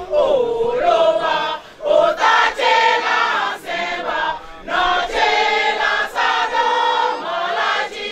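A group of women singing a chant together, in short phrases with brief breaks between them.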